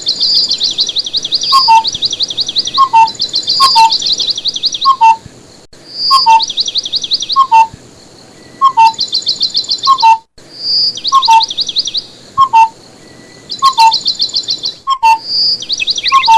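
Birdsong. One bird repeats high, rapid trilled phrases, each opening on a short whistle. Under it, a lower two-note falling call comes about once a second.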